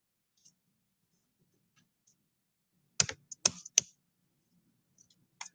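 Computer keyboard keystrokes: a few faint taps, then a quick run of about four sharp key clicks about three seconds in and one more near the end.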